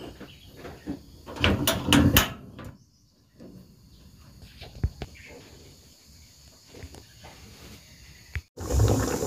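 Scattered knocks and clatter of things being handled, with a cluster of louder knocks about a second and a half in and a single click around the middle, then a dense steady hissing noise starting suddenly near the end.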